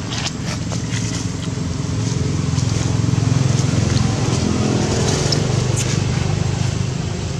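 Low hum of a motor vehicle's engine passing, swelling to a peak a few seconds in and then fading, with short crackles of dry leaves as a baby macaque crawls over them.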